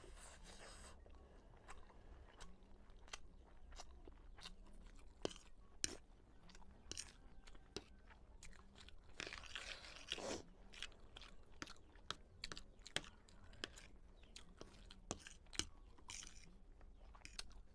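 Close-miked chewing of stir-fried noodles, with moist smacking and many small mouth clicks. It opens with a noodle slurp as a forkful is sucked in, and there is a longer noisy stretch around ten seconds.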